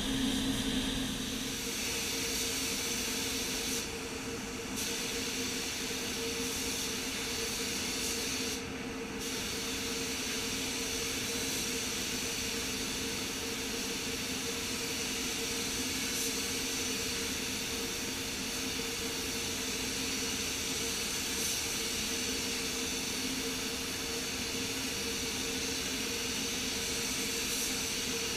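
Compressed-air paint spray gun hissing steadily while spraying paint onto car body panels, over a steady low hum in the spray booth. The hiss cuts out briefly twice, about four and nine seconds in, as the trigger is let off.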